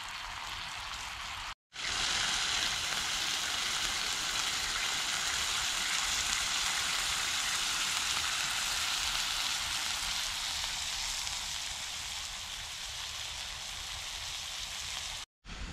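Rump steak sizzling in a frying pan over a Trangia alcohol stove: a steady hiss of frying fat. It breaks off for a moment about a second and a half in, when it comes back louder, and breaks off again near the end.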